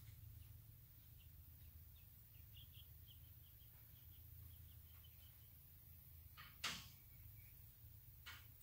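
Near silence over a low steady hum, with faint light ticking, then one sharp click about two-thirds of the way in and a softer one near the end: parts and hand tools knocking as brackets are fitted onto a truck's radiator core support.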